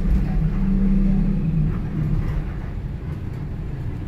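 City bus engine running: a heavy low rumble with a steady low hum that is strong for the first two seconds, then fades.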